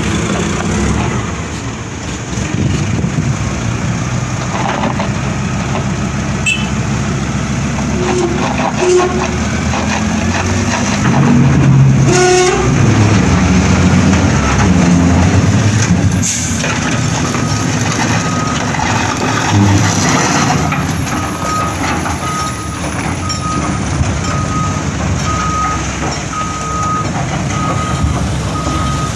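Heavy diesel engines of a truck and a backhoe running hard under load. An air brake hisses about halfway through. Then a reversing alarm beeps steadily, about once a second, to the end.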